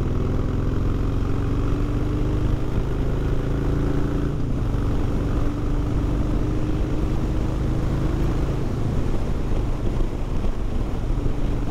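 Harley-Davidson Heritage Softail's V-twin engine pulling under open throttle as the motorcycle accelerates toward about 120 km/h, its pitch climbing slowly. The pitch breaks and drops back about four seconds in, then climbs again, over a heavy low rush of wind and road noise.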